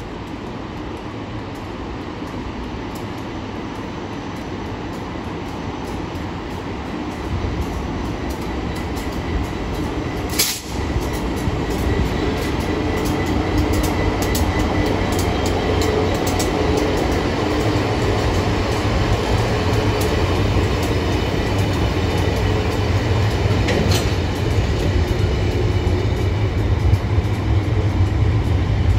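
Freightliner Class 59 diesel-electric locomotive, its EMD two-stroke engine running, drawing near and passing, followed by its aggregate hopper wagons rolling by on the rails. It grows louder throughout, with a sharp click about ten seconds in and another later on.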